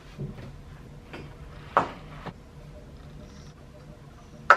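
A few short clicks and knocks from a pet food bowl being handled and set down on the floor, the sharpest one near the end.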